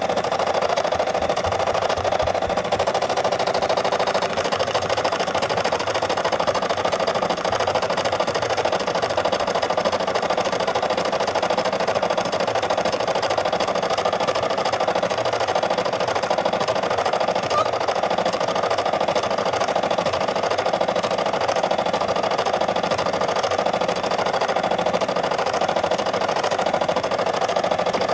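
Brother SE600 embroidery machine stitching a design, its needle running in a fast, steady rhythm.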